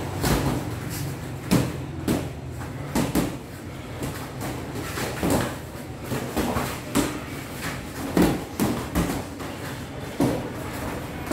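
Padded boxing gloves landing on gloves, arms and headgear during sparring: about a dozen irregular punch impacts, some in quick pairs.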